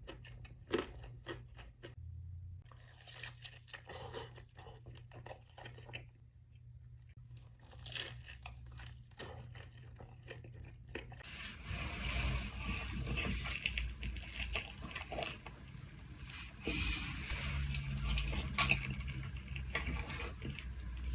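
Close-miked eating: crunchy bites and wet chewing, with many short crackles. About halfway through the sound gets louder and fuller.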